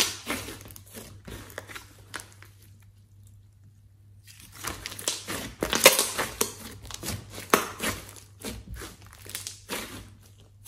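Thick slime mixed with clay being squeezed, folded and pressed by hand, making sticky crackling, popping and squishing sounds. It goes quieter for a moment in the middle, then the squishing gets louder again from about four and a half seconds in.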